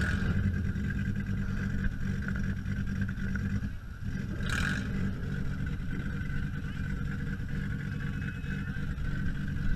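A demolition-derby car's engine running as the car backs up, heard from inside the gutted cabin, with a steady whine over it. A short hiss about four and a half seconds in.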